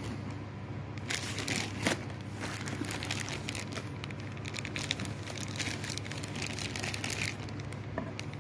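Clear plastic bags crinkling and crackling in irregular bursts as they are handled and lifted out of a cardboard box, over a steady low hum.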